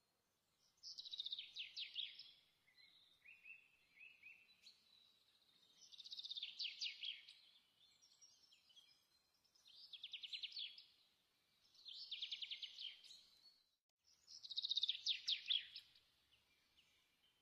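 Faint bird song: five short phrases of rapid chirping trills, each about a second long, with softer chirps in between.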